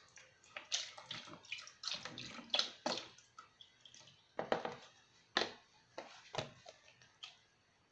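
Coconut milk poured into a pot of sauce ingredients: a run of irregular drips and splashes that thin out near the end.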